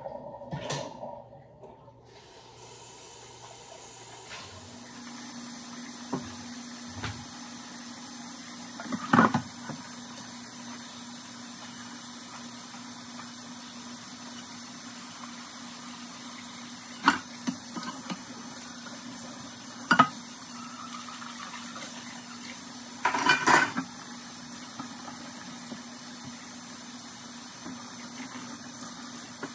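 Kitchen tap running steadily into a stainless steel sink while a pot is scrubbed and dishes are rinsed, with several sharp clinks and clatters of dishes against the sink. The running water starts a few seconds in.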